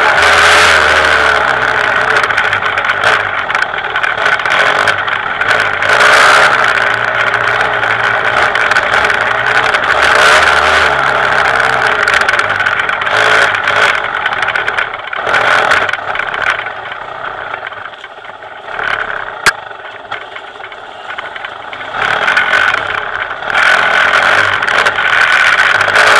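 Dirt bike engine revving up and down on a trail ride, the throttle rising and falling continuously. Past the middle it eases off and goes quieter for several seconds, with a single sharp click, then picks up again near the end.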